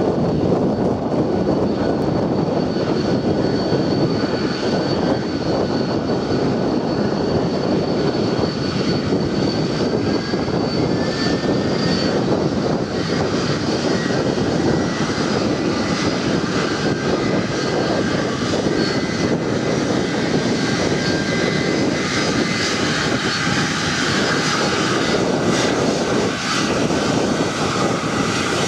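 Boeing 747-400's four Pratt & Whitney PW4056 turbofans running as the jet taxis past close by: a loud, steady rushing roar with a thin high whine over it and a fainter whine that rises slightly partway through.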